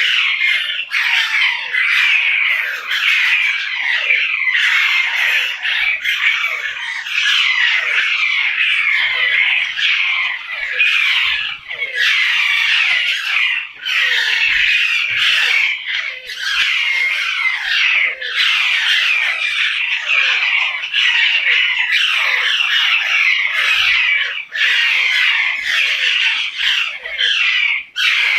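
Many parrots squawking and chattering together, a continuous din of overlapping calls.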